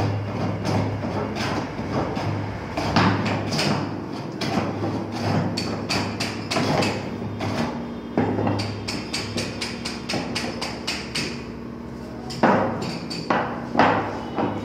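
Carpenter's hand tools knocking and tapping on wood in irregular strikes, with a quick run of light taps, about five a second, in the middle and a few harder blows near the end.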